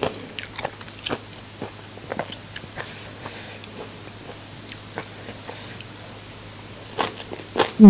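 Close-up chewing of crunchy fried food, a scattered run of small crisp crunches, with a louder burst of bites about seven seconds in.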